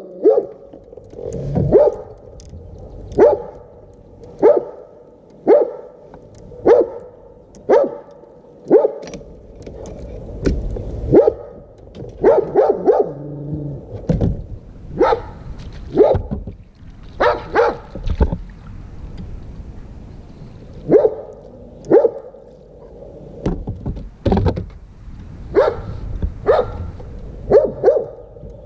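Dogs barking over and over, short sharp barks coming about once a second, sometimes two or three in quick succession.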